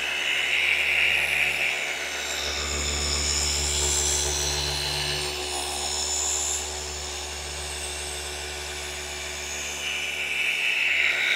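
Flex FX3331 24V cordless gear-driven orbital polisher running with its pad buffing car paint: a steady motor and gear whine with a low hum, easing a little quieter about halfway through.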